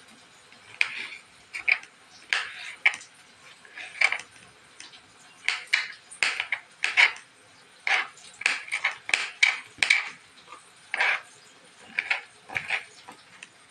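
Kitchen knife slicing and chopping a green capsicum on a cutting board: a string of crisp, irregular cuts as the blade goes through the pepper flesh and taps the board.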